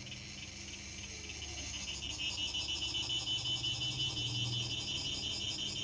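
Insects chirping in a fast, even pulsing rhythm that grows louder about two seconds in, over a faint low hum.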